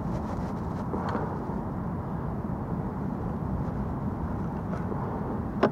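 Steady low rumbling outdoor noise on the beach, with a sharp click near the end.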